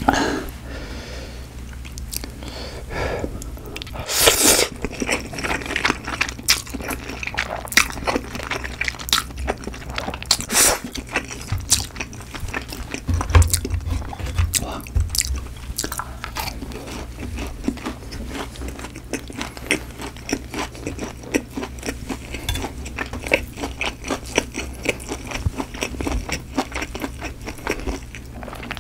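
Close-miked eating: biting, crunching and chewing seasoned boneless fried chicken and mouthfuls of instant noodles, with many small wet mouth clicks and a louder crunch about four seconds in.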